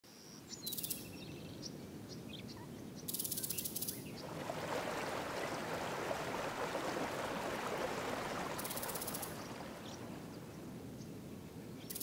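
Shallow creek water running over rocks, rising to a steady rush through the middle. A bird's short high trill repeats several times over it.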